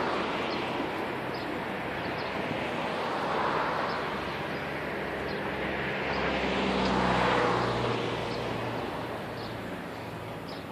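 Distant excavators working a demolition site: engine noise that swells and fades several times, loudest with an engine hum about seven seconds in, with faint metallic clanks now and then.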